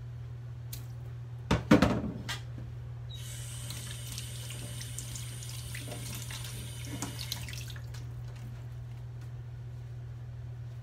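A few knocks and clatter about a second and a half in, then a tap runs water into a sink for about five seconds and is shut off.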